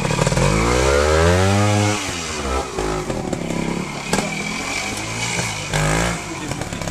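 Vintage trials motorcycle's engine revving hard as it climbs a section. The revs rise for about two seconds and drop back, followed by shorter bursts of throttle.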